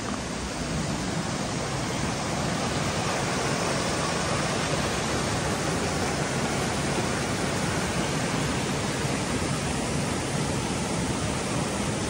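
Waterfall: a river rushing over rock ledges and down a steep rocky drop, a steady, loud rush of water with no let-up.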